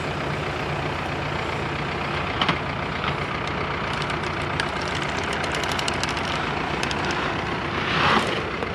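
Diesel engine running steadily at low speed, with faint rapid ticks in the middle and a short louder rush of noise about eight seconds in.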